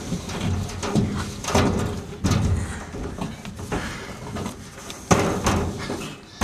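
Irregular thuds and knocks of shoes and hands on a metal playground slide as two people scramble up it on all fours.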